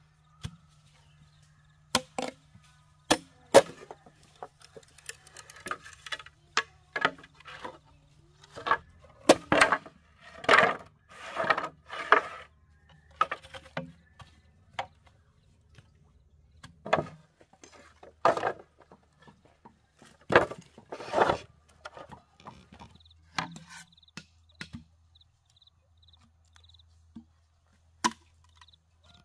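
Bamboo being worked with hand tools: irregular sharp knocks and short chopping strokes on the bamboo.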